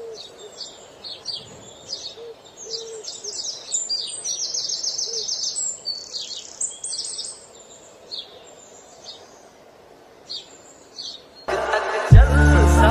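Small birds chirping, many short high calls overlapping, with one rapid trill about four seconds in. Near the end, loud music with a heavy bass beat comes in over them.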